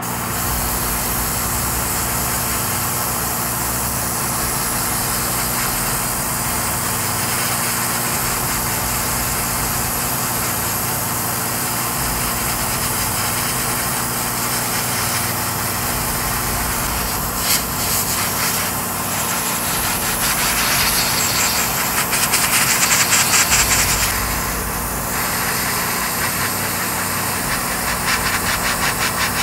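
Airbrush spraying paint, a steady hiss over the constant hum of an electric motor running. The hiss swells louder for a few seconds about three-quarters of the way through.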